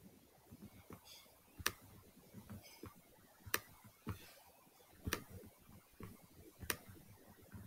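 Faint sharp clicks, four of them about every one and a half to two seconds, with soft rustling between: a pen or stylus tapping and sliding on a tablet screen while a word is handwritten.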